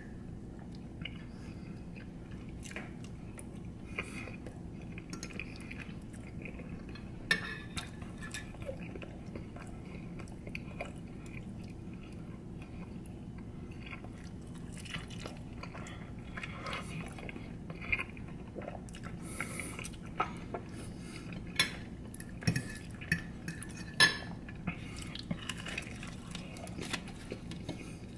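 A person eating chicken with his hands: quiet chewing, with scattered short clicks and clinks of a plate and dishes, over a steady low room hum.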